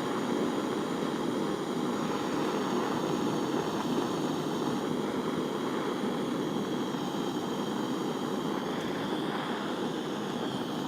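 Gas soldering torch burning with a steady rushing hiss, its flame heating a silver setting and backplate for silver soldering.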